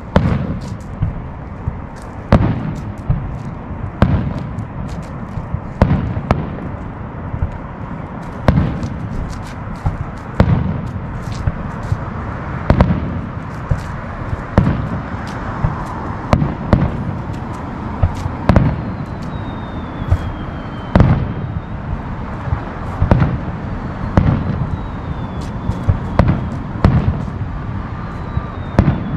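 Aerial fireworks shells bursting at a distance, a run of sharp booms about one every one to two seconds over a low rumble.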